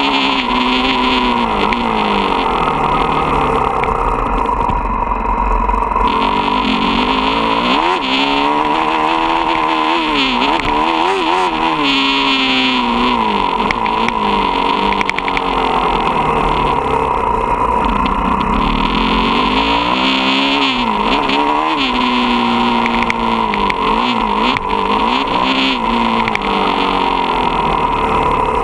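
Motocross dirt bike engine heard close up, revving up and dropping back again and again as the rider accelerates, shifts gears and backs off.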